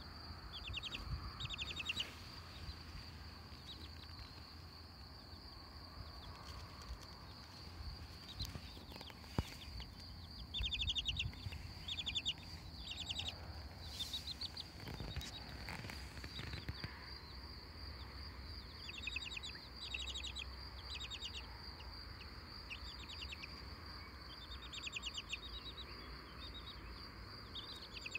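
Baby poultry (chicks and goslings) chirping softly in short, rapid trilled bursts, over and over, with a steady high-pitched whine underneath throughout.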